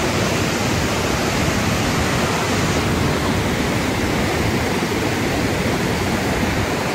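Flash-flood waterfall and torrent of muddy floodwater rushing through a rock canyon: a steady, even roar of falling and churning water.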